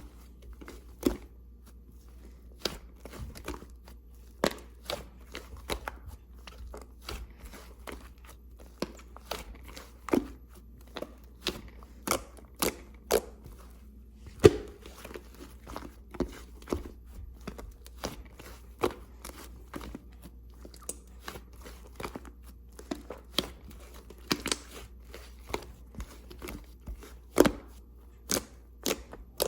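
Clay slime being squeezed and poked by hand, giving irregular sharp pops and crackles, one to three a second, with a steady low hum under them.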